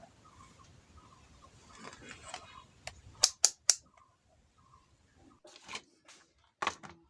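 Sharp handling clicks and taps while a Bluetooth speaker box is being worked on: three quick clicks a little over three seconds in, another near the end, with soft rustling and faint short blips between.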